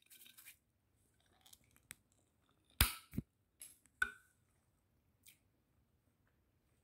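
A few scattered sharp clicks and knocks from food and containers being handled on a table, the loudest two close together about three seconds in and another about a second later.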